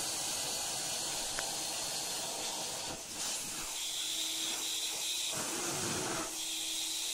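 Central vacuum drawing air through its hose wand with a steady hiss. The sound shifts abruptly a few times as a cat's fur presses against and lifts off the nozzle.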